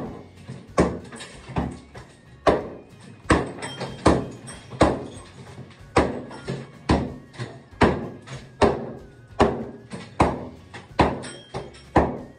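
Heavy ball-peen hammer striking an old tiled wall set in hard plaster over wire lath. The sharp blows come steadily, roughly one to two a second, as the tile and plaster are broken off in demolition.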